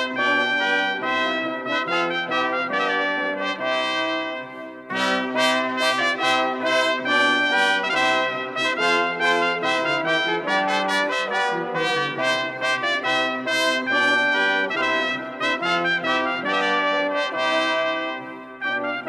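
Brass band playing, led by trumpets with trombones below, holding full chords, with a brief drop just before five seconds in and then a loud re-entry.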